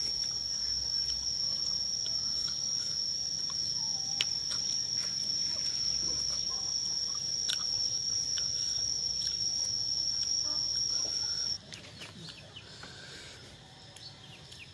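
An insect's steady, high-pitched drone, which cuts off suddenly about three-quarters of the way through; faint short bird chirps follow.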